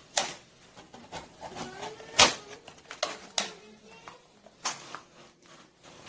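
Pocket knife cutting around a thin aluminium drink can, giving irregular sharp clicks and crinkles as the blade punches and tears through the metal, the loudest about two seconds in.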